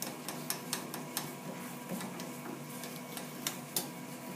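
Scattered light metallic clicks and ticks as tooling in a lathe tailstock is handled, over a steady low hum.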